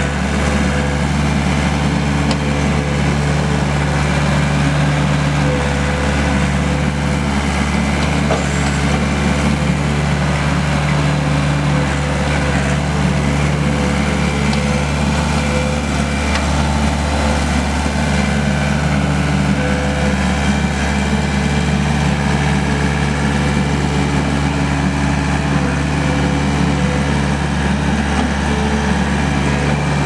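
Case 1845C skid steer's 4-390 four-cylinder diesel engine running steadily at an even speed.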